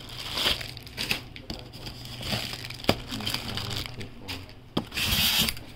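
Clear plastic packaging being handled and crumpled, with sharp crackles throughout and a louder rustle near the end.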